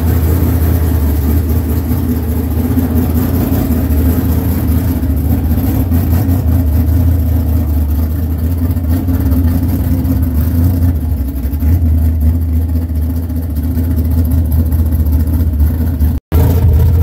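Dirt-track modified race car engine running at low speed as the car backs out and rolls slowly, a steady, loud, low-pitched engine sound. The sound drops out for an instant near the end.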